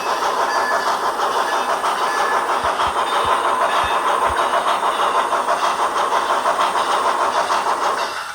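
HO scale model steam locomotive's LokSound sound decoder playing a steady, rapid run of exhaust chuffs through its small onboard speaker, with a few low thumps partway through. The sound cuts off abruptly near the end.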